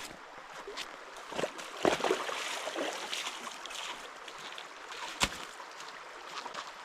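Creek water running steadily, with a few short knocks over it, the sharpest about five seconds in.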